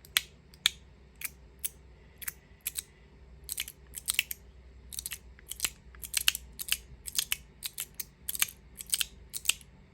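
Magnetic haptic slider fidget being snapped back and forth by hand, its magnets giving sharp, loud clicks. The clicks come irregularly, two or three a second, some in quick pairs.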